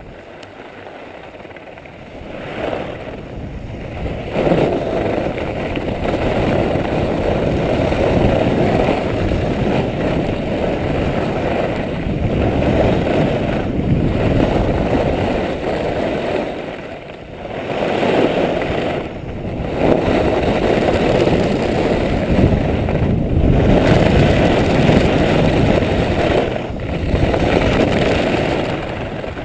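Wind rushing over the microphone of a skier's camera, together with skis scraping over groomed snow, during a fast downhill run. The noise builds over the first few seconds and then swells and drops briefly every few seconds.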